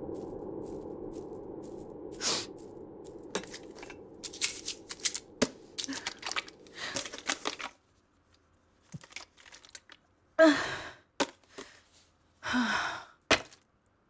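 A plastic water bottle crinkling and crackling as it is handled and drunk from, then two heavy breaths with a falling pitch near the end. A low steady drone runs under the first half and stops about eight seconds in.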